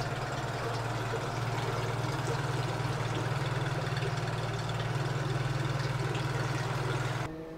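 Yamaha F9.9B four-stroke outboard motor, cowling off, running steadily in a test tank. It cuts off abruptly about seven seconds in.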